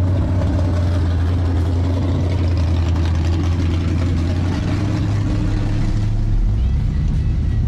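Car engine running with a steady low rumble, its note changing a little about halfway through.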